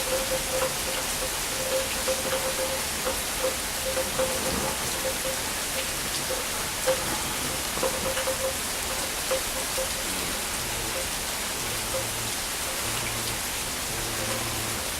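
Heavy rain falling steadily, with many small drop impacts ticking close by. A faint low hum comes in near the end.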